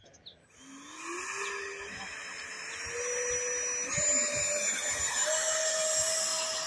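Electric ducted fan of a 3D-printed RC Albatross jet spooling up with a high whine that steps up in pitch several times as the throttle is advanced, while the model starts its takeoff roll.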